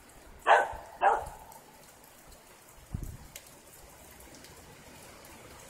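Two short barks about half a second apart near the start, over a steady hiss of thunderstorm rain, with a brief low thump about three seconds in.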